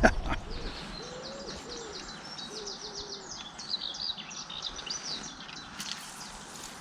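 Birdsong: a pigeon cooing in low, soft hoots while a small songbird sings a fast run of high repeated notes. A short knock sounds right at the start.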